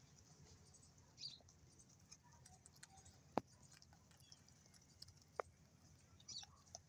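Near silence: faint outdoor ambience with two sharp clicks, one about three seconds in and one about five seconds in, and a couple of faint high chirps.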